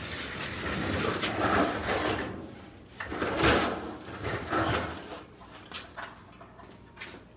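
Scraping and rattling as a four-burner propane gas grill is pushed across a floor, followed by a few short knocks near the end.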